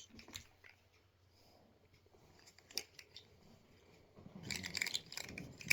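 Small plastic fidget toys being handled and clicked together: a few separate sharp clicks, then a denser run of clattering and rustling about four seconds in.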